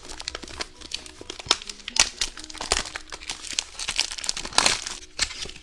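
Clear plastic shrink-wrap being crinkled and peeled by hand off a small plastic toy carrier: a dense run of irregular crackles.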